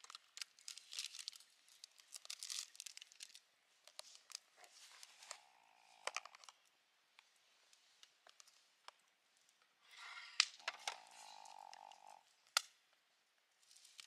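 Faint handling of a plastic food container, its snap-on lid being pried off: soft crinkling, creaking and small plastic clicks, with one sharper click near the end.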